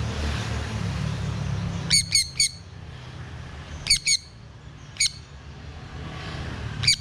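Sun conure giving short, shrill squawks in quick groups: three together about two seconds in, then two, then single calls, the last right at the end.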